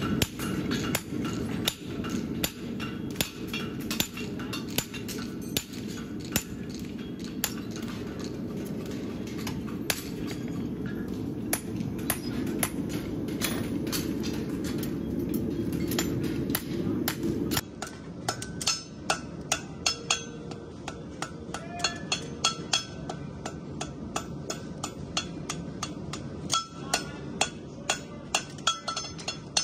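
Farrier's hammer striking steel, in many irregular, ringing blows. A steady low background noise runs under them and cuts out suddenly about two-thirds of the way through.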